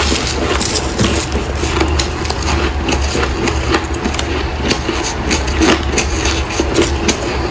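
Freezer frost crunching: many quick, crisp crunches in an irregular rhythm, over a steady low hum.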